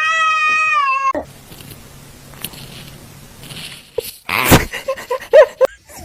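Domestic cat meowing: one long meow that drops in pitch at its end, then, after a short burst of noise about four and a half seconds in, a quick run of short, loud meows.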